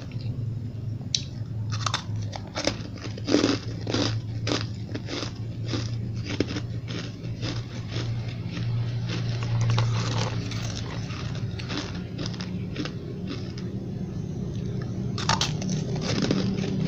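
Frosty ice chunks being bitten and crunched in the mouth: a quick run of sharp crunches that thins out, with a louder crunch near the end.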